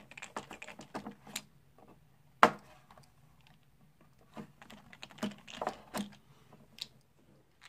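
A star-bit screwdriver twisted by hand in a hole in the plastic case of a Devo 7e radio transmitter, boring the hole wider: irregular small clicks and scraping of the bit against the plastic, with one sharp knock about two and a half seconds in.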